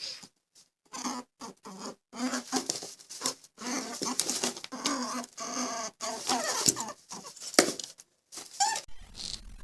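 An animal making a quick series of short, pitched calls, squeaks and bleats, broken by brief pauses.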